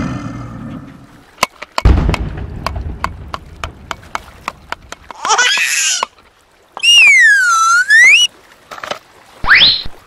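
Cartoon-style sound effects: a low boom about two seconds in, followed by a run of quick clicks. Then come whistle-like tones: one wavers, a longer one dips and rises again, and a short one rises quickly near the end.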